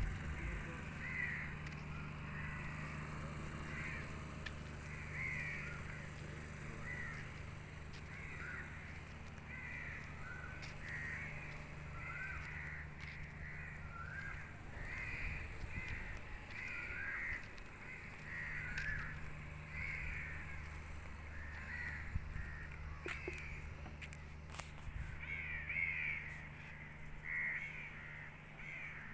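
Birds calling over and over, short calls roughly once a second and crowding together near the end, above a steady low hum.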